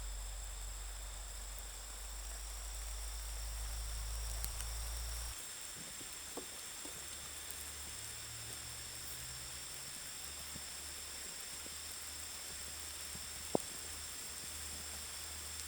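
Insects chirring steadily in a continuous chorus of several high, even tones, over a faint hiss. A low hum cuts off about five seconds in, and a few faint clicks come through, one sharper near the end.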